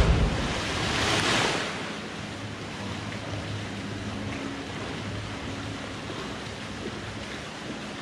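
A person jumping into a deep rock pool: a loud splash right at the start, spray hissing back onto the water over the first second or so, then water sloshing as he swims, over a steady rush of noise.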